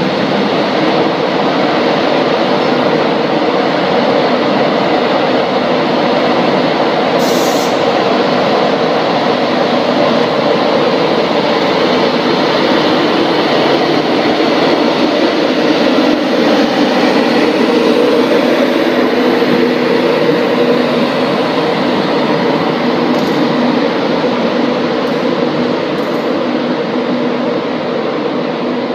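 Class 91 electric locomotive running with a steady, loud machinery drone, then moving off and fading slightly near the end.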